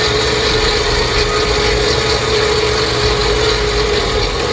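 A four-wheel-drive vehicle's engine running at steady revs: a steady whine over a low rumble.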